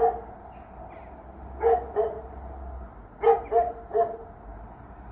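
Short barking calls, one at a time and then in quick runs of two and three, over a low steady rumble.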